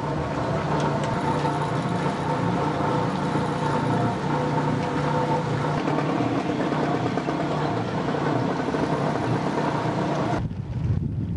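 Boat engine running steadily at a constant pitch while the sailboat motors through the moorings. It cuts off abruptly near the end, leaving wind buffeting the microphone.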